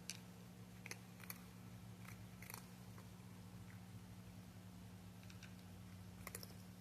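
A cat crunching dry cat treats: faint, sharp crunches at irregular intervals, a few in quick succession near the start and again near the end, over a steady low electrical hum.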